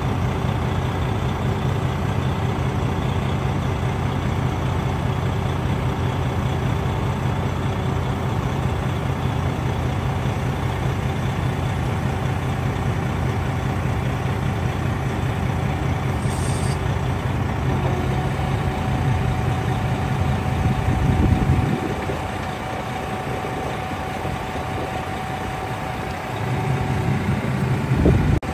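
Freightliner Columbia's Detroit Series 60 six-cylinder diesel running steadily under the load of the Hiab knuckleboom crane's hydraulics as the boom unfolds. The deep engine rumble swells and then drops away about three-quarters of the way through, comes back briefly, and drops again near the end, with a faint steady whine in the second half.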